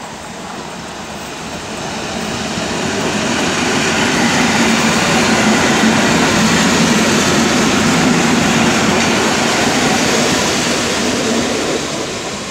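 EN57 electric multiple unit passing close by: the steady rumble and rush of its wheels on the rails swells as the train draws level, then cuts off suddenly at the end.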